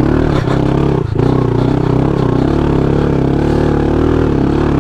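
A pit bike's small single-cylinder engine running hard under load as it climbs a steep dirt hill. Its pitch wavers slightly, with a brief dip about a second in.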